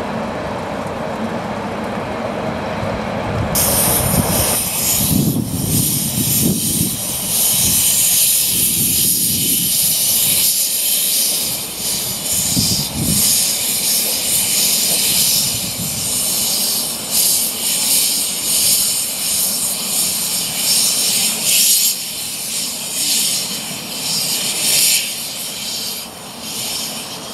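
Narrow-gauge Hunslet saddle-tank steam locomotive 'Irish Mail' with its cylinder drain cocks open, moving slowly. Steam hisses loudly from the cylinders, starting suddenly about three and a half seconds in and lasting almost to the end, with a few low surges along the way.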